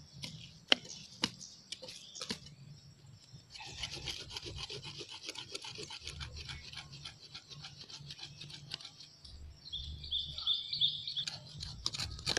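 A hand tool's metal blade digging and scraping soil around the roots of a serut (Streblus asper) bonsai stock growing on rock. A few sharp knocks come first, then several seconds of quick, rapid scraping strokes.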